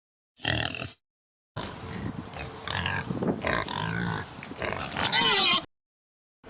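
Pig grunting, then a longer stretch of grunts ending in higher, wavering squeals, in short clips separated by silence.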